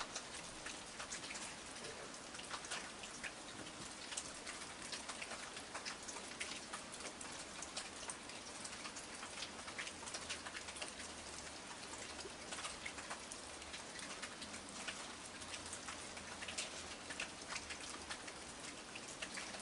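Steady rain falling, with many separate drops ticking and pattering on hard surfaces close by.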